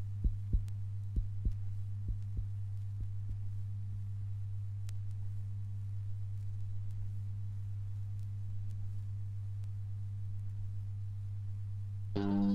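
A steady low hum, with a heartbeat-like double thump that grows fainter and stops after about three seconds. Just before the end an electric guitar comes in with single picked notes.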